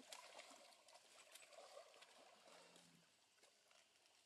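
Near silence, with faint water sounds and a few soft clicks.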